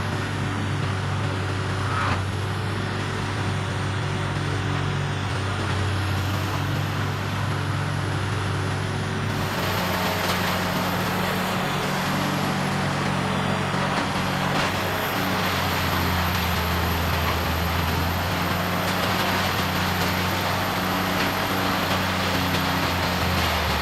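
Large diesel-driven wood grinding machine running steadily, a deep engine drone under a rough grinding noise that gets heavier and harsher about nine seconds in.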